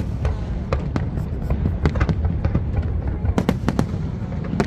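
Aerial fireworks bursting: rapid, irregular bangs and crackles over a continuous low rumble.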